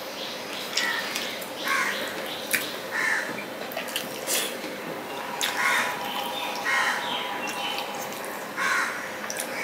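Close-miked eating: wet chewing and mouth clicks as rice and fish curry are mixed by hand on a steel plate and eaten. Crows caw repeatedly in the background, about once every second or two.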